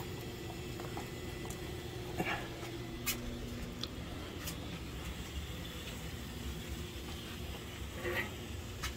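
Steady low electric motor hum from a just-powered hot-water recirculating pump, with a few faint clicks.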